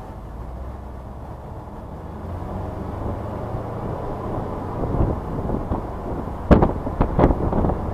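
Mercedes SLK driven on a race track: engine and road noise, growing louder from about two seconds in. Near the end comes a quick cluster of sharp thumps.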